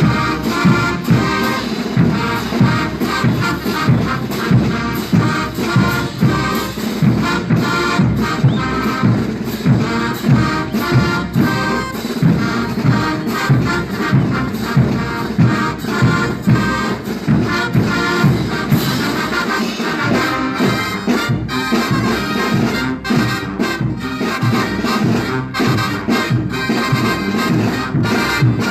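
A Mexican banda (brass band) playing: trumpets and trombones carry the melody over a steady pulsing beat in the low range.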